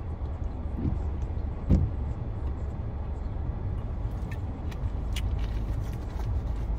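Steady low rumble inside a car's cabin while a person drinks soda from a plastic bottle, with one sharp thump about two seconds in and a few faint clicks later.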